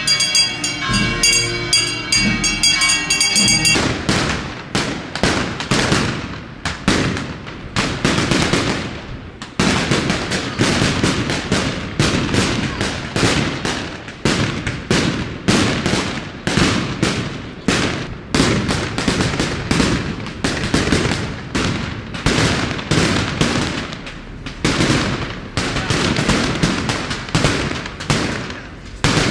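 Band music for about the first four seconds, then it cuts off and a long, unbroken string of fireworks bangs follows, a few a second: daytime festival firecrackers going off in succession.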